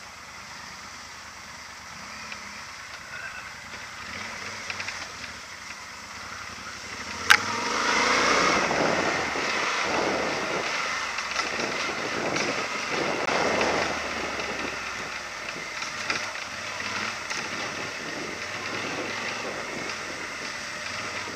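Yamaha Super Tenere XT1200 riding down a rough dirt trail: a steady noise of wind and travel, a single sharp knock about seven seconds in, then several seconds of louder, jolting rattle over the rough ground before it settles again.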